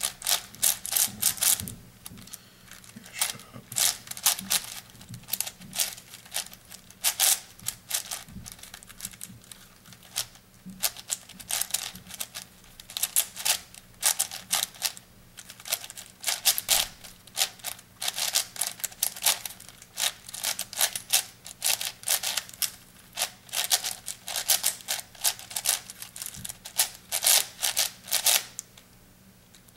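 Plastic layers of an 8x8 puzzle cube being turned by hand: quick, irregular runs of clicks and clacks as the layers snap round, with a pause of about a second near the end.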